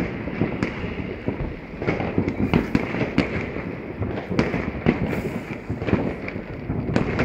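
Fireworks going off across the town: a continuous barrage of bangs and crackling, with louder sharp reports standing out every second or so.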